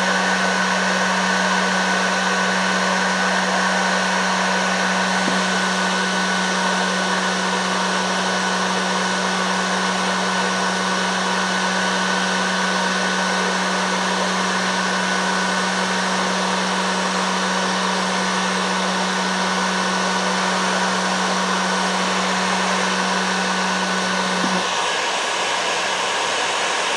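Heat gun blowing steadily while shrinking heat-shrink tubing onto plier handles. A low hum in the sound cuts off near the end, while the blowing continues.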